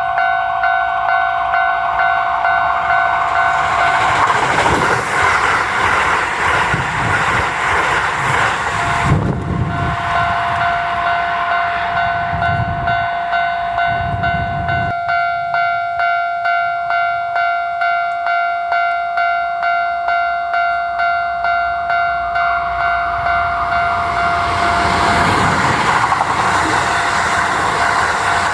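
Japanese railway crossing warning bell ringing steadily as a Kintetsu 80000 series 'Hinotori' limited express rushes past, with low rhythmic thumps of its wheels over the rail joints. The bell then rings on almost alone, and a second Hinotori's running noise rises near the end.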